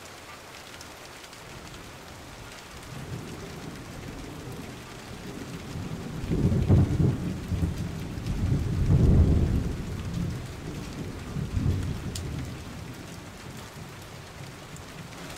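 A steady hiss with three deep rumbles that swell up and fade in the middle stretch.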